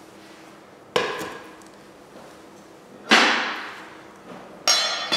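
Three sharp clanks of cookware on a hard kitchen counter, about a second in, after three seconds and near the end, each ringing out for about a second.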